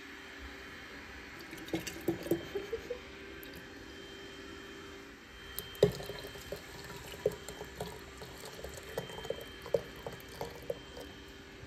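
Water being poured into an IKEA stainless-steel vacuum flask through its plastic neck: a steady trickle with many short splashes and drips scattered through it.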